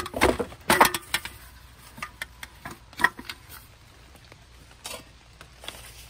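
Slats of a folding camp roll table clattering as it is handled and rolled up for packing: a quick burst of clicks and knocks in the first second, a few more around the middle, then only scattered light taps.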